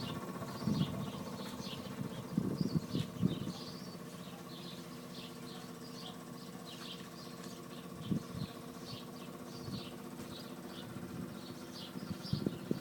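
Hess Einheit 1900 shoe repair machine's electric motor running steadily with a hum. Irregular high chirps sound over it, and a few low knocks come about a second in, around three seconds in, and near eight seconds.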